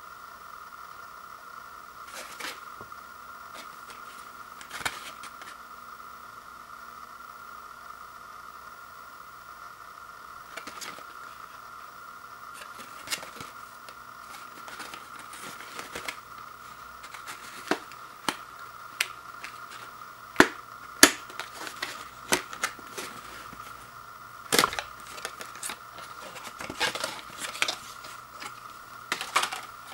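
Paperboard sleeve and plastic noodle bowl being handled: scattered rustles, scrapes and sharp clicks, sparse at first and busier in the second half as the bowl is slid out of the sleeve. A steady high-pitched hum runs underneath.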